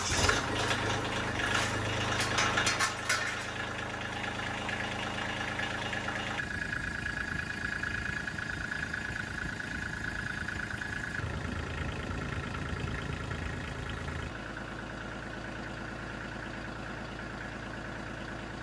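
A Kubota compact tractor's diesel engine idling steadily at about 1,100 rpm, just started with new fuel return lines fitted so the fuel system is under pressure for a leak check. It is louder for the first three seconds, then steadier and softer.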